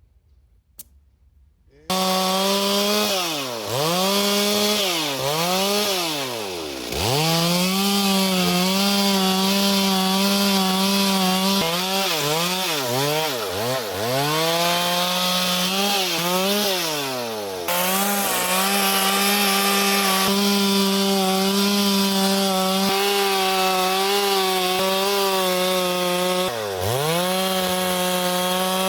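Two-stroke chainsaw cutting conacaste (guanacaste) wood. The saw comes in suddenly and loud about two seconds in, then runs at high revs, its pitch dropping and climbing back several times as it works.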